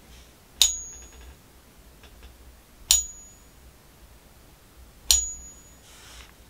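A counterfeit Morgan silver dollar on a Pocket Pinger coin tester is struck three times, about two seconds apart. Each strike gives a short, high ring that dies away quickly. The ping-test app fails the coin on all three strikes: it is a fake copy.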